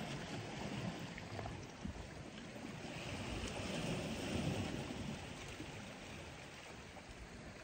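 Gentle sea water lapping and washing against the rocks at the shoreline, swelling about three seconds in and easing off near the end.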